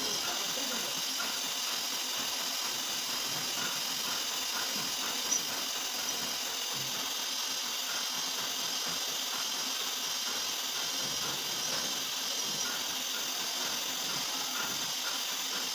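Steady hissing run of a CNC vertical machining centre, its spindle turning a spot drill that is drilling a pattern of holes in a steel plate. There is one short click about five seconds in.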